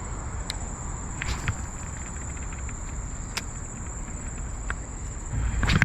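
Steady high-pitched drone of insects, with scattered sharp clicks and rustling. A louder low rustle and thump comes near the end.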